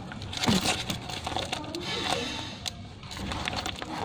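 Homemade paper squishy, taped paper stuffed with plastic bags, squeezed by hand: paper and plastic crinkling and rustling, thickest about two seconds in.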